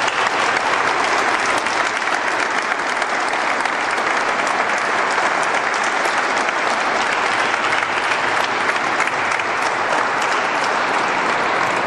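A church congregation applauding: a long, steady round of clapping from many hands.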